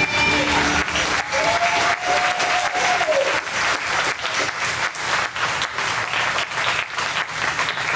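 A church audience applauding as the closing song ends in the first second. About a second in, one voice holds a long note over the clapping for about two seconds.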